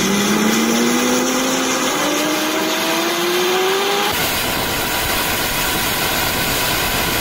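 Mi-8-type helicopter's turbine engines whining, the pitch rising steadily as they spool up at start-up. About four seconds in, the whine gives way to a steady broad rush of engine and rotor noise.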